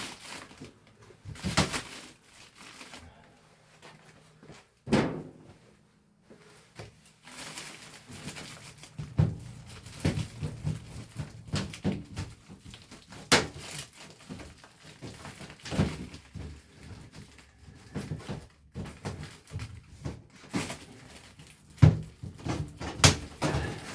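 Irregular knocks, thunks and clatter of hands-on work pulling out old HVAC return ductwork, with several sharp bangs among quieter rustling and scraping.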